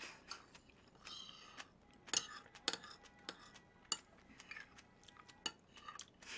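A person chewing a mouthful of thick porridge with the lips closed, close to the microphone: faint wet mouth sounds with a scattering of soft clicks.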